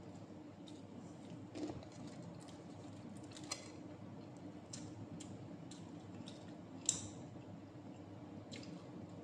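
Fingers picking flesh off the bones of smoked fish (tinapa), making scattered small wet clicks and squishes, the sharpest one about seven seconds in, over a steady low hum.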